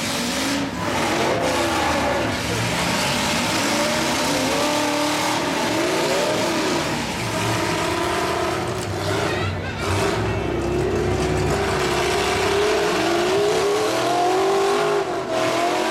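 Several demolition-derby trucks' engines running and revving hard together, their pitch rising and falling over a steady din as they push and spin.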